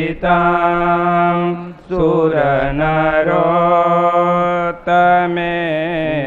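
A man chanting a Sanskrit devotional verse (dhyana shloka) to Swaminarayan in a slow, drawn-out melody. He holds long, gently wavering notes and pauses briefly for breath twice.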